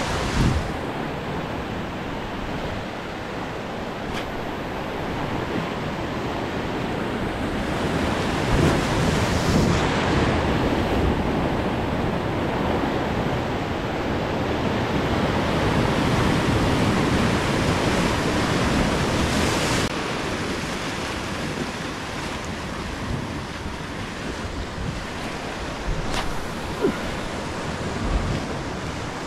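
Atlantic surf breaking and washing over rock ledges: a continuous rushing of water that swells louder for several seconds in the middle and then eases.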